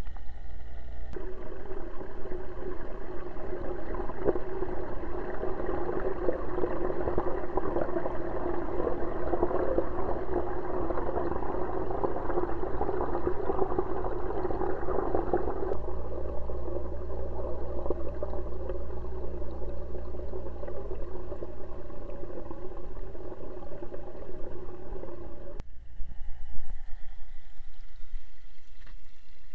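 Air bubbles from an aquarium's aeration, heard with the microphone underwater in the tank: a continuous bubbling and gurgling over a low hum. The bubbling is heaviest in the first half, drops abruptly about halfway through, and changes again a few seconds before the end, where a single sharp knock stands out.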